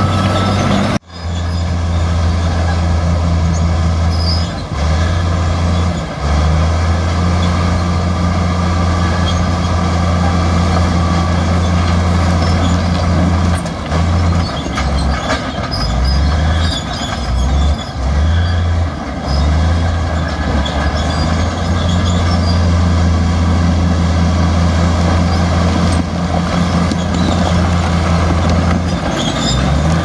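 Heavy diesel earth-moving machine running hard, a loud low engine drone that eases off briefly several times in the middle stretch. The sound drops out for an instant about a second in.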